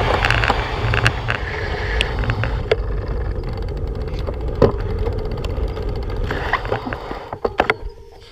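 Wind and road noise on a bike-mounted camera's microphone as a road bike coasts slowly, with scattered clicks and knocks from the bike. The noise dies away near the end as the bike rolls to a stop.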